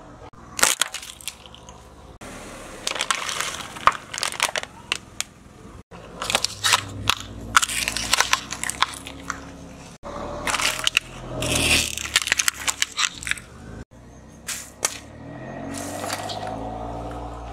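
Plastic bottles and cups cracking and crunching as a car tyre rolls over and crushes them: clusters of sharp snaps and crackles, in several short takes that cut off abruptly.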